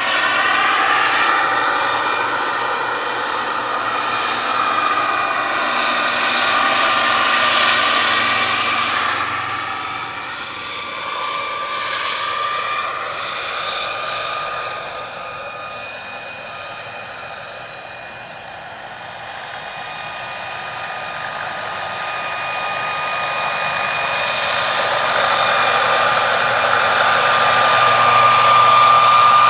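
Turbine-powered RC scale model of a Eurocopter EC135 helicopter flying, its turbine whining over the rotor noise. In the first half the whine shifts in pitch as it passes. It fades as the helicopter moves away, then grows steadily louder as it comes back in low and close.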